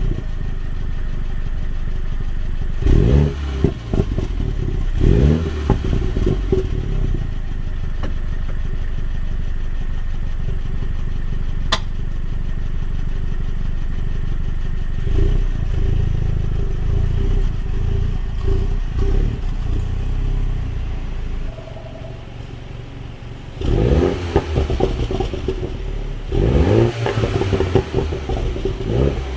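A 2021 Mini John Cooper Works F56's turbocharged four-cylinder engine idling through its exhaust and blipped in short revs: two quick revs a few seconds in, a few milder rises in the middle, and two more sharp revs near the end.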